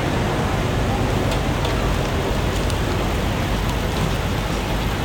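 Busy city street ambience: a steady dense hiss over a low traffic rumble, with a few faint ticks between about one and three seconds in.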